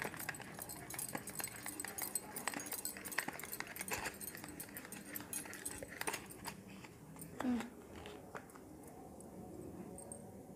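Light rustling and small clicks of hands handling thread and a small cardboard box, winding thread around the box to make tassels; the handling noise thins out in the last few seconds. One short voiced hum about three-quarters of the way through is the loudest sound.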